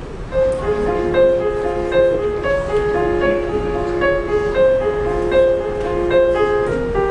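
Piano playing a song introduction: a repeating pattern of notes that starts about half a second in, before any singing.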